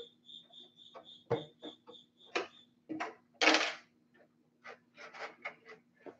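Clicks, knocks and a brief scrape of a plastic RC truck body being lifted off its chassis and handled, the scrape about three and a half seconds in being the loudest. A cricket chirps in quick, even pulses for the first couple of seconds, over a faint low steady hum.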